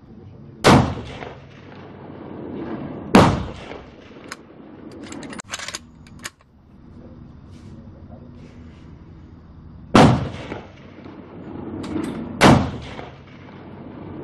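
Bolt-action .308 Ruger Precision Rifle firing four shots: two about two and a half seconds apart, then after a pause two more with the same spacing, each a sharp crack followed by a short echo. A few lighter clicks fall between the second and third shots.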